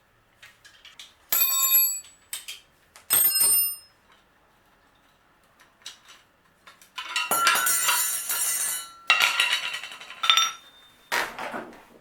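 Metal bicycle parts and tools being handled on a workbench. Two separate ringing metal clinks come about one and a half and three seconds in, then a longer run of rattling metallic clatter starts about seven seconds in, with more clinks near the end.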